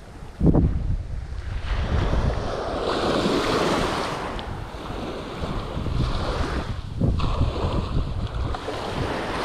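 Ocean surf breaking and washing up a sandy beach, with wind buffeting the microphone. A wave's wash swells up about two seconds in and ebbs away by the middle, and another rises near the end.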